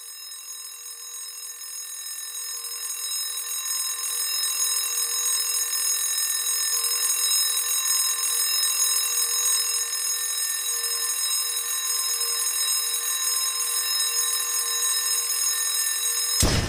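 An alarm clock ringing continuously, fading in over the first few seconds and then holding steady. It is cut off suddenly near the end by a short loud hit.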